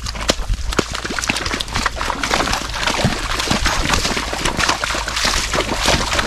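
Horse and mule hooves wading through shallow muddy floodwater, a run of splashing and sloshing steps that grows heavier about two seconds in.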